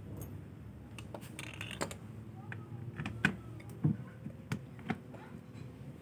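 Scattered small clicks and knocks of a washing-machine gearbox and its plastic drive pulley being handled and fitted against the plastic tub, with a few sharper knocks a little past the middle.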